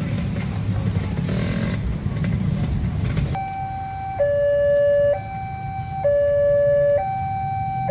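Road traffic rumble. About three seconds in it gives way to a railway level-crossing alarm: an electronic two-tone signal alternating high and low, each tone held just under a second, warning of an approaching train.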